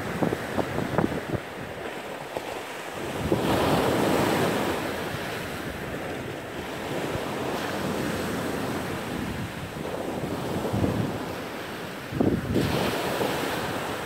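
Sea waves breaking on a pebble beach and washing back over the stones, with a clatter of pebbles in the surf. The surf swells louder twice, once about a quarter of the way in and again near the end as bigger waves break.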